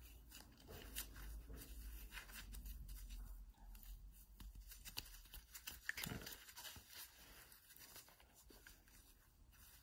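Faint rustling of gloved hands and scattered light clicks as small parts are handled, over a faint low hum.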